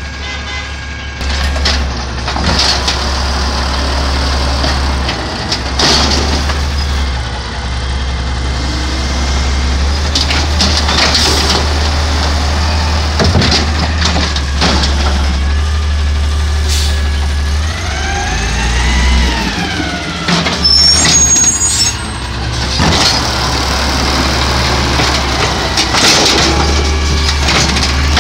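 Diesel engine of a side-loading garbage truck running as the truck pulls up and stops, with several short air-brake hisses. Partway through, the engine revs up and back down, and a few brief high-pitched brake squeals follow.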